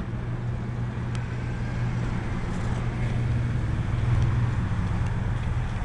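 A steady low machine hum under an even background noise, with a faint click about a second in.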